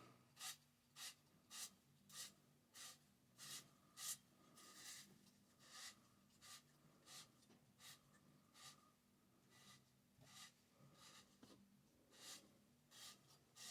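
Faint, even scratchy strokes, about two a second: a pipe-dope brush being worked onto Teflon-taped pipe threads.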